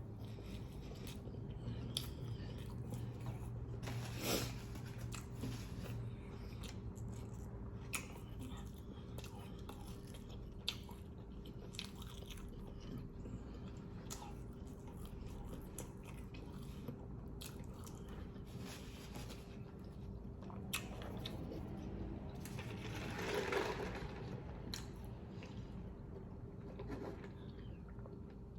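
Close-up chewing and biting of a fried chicken sandwich, with many short wet mouth clicks and crunches, and a louder bite about three-quarters of the way through. A steady low hum runs underneath.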